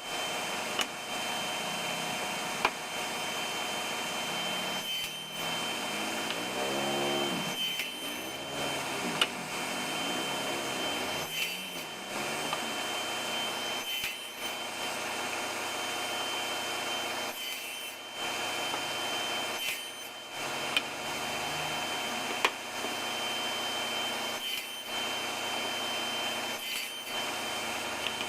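Table saw running with a steady high whine while cutting tenons in wood; about six to eight seconds in, its pitch sags and recovers several times as the blade takes the cut. The sound drops out briefly at several points, with a few sharp clicks.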